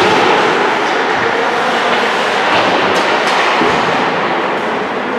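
Steady, loud din of an indoor ice hockey rink during play, an even rushing noise with a few faint clicks about three seconds in.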